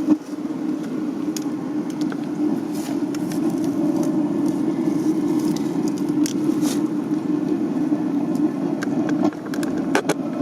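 Atwood RV water heater's propane burner running with a steady low rushing sound and scattered crackles. The flame is flickering, and the owner thinks the burner may need opening up a little.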